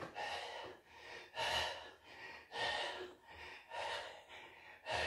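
A man breathing hard and fast through the mouth, quick gasping breaths in and out, about one breath every second, the exertion breathing of a rapid set of leg raises.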